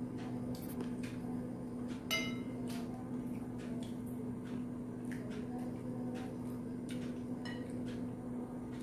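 Scattered taps and clicks of fingers and food against a ceramic plate while eating rice by hand, with one ringing clink of the plate about two seconds in. A steady low hum runs underneath.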